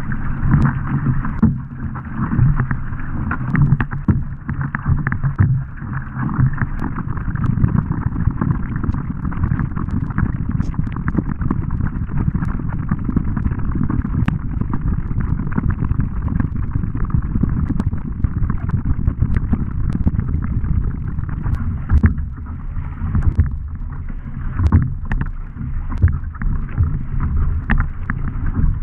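Racing surfski being paddled: the wing paddle's blades splash in and out of the water on alternating sides, stroke after stroke, over continuous water washing along the hull.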